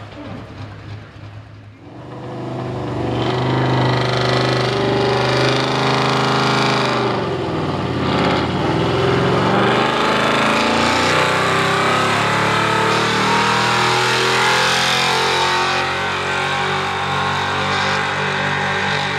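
Stock gas-engined Chevrolet pickup pulling a weight-transfer sled at full throttle. The engine comes up to full load about two seconds in, its pitch drops and climbs again near the middle, then it runs loud and steady under the pull.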